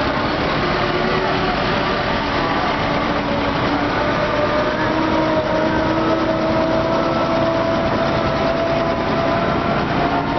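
Vintage military jeeps and a three-quarter-ton truck driving slowly past close by, their engines running steadily, with a faint whine that slowly rises in pitch.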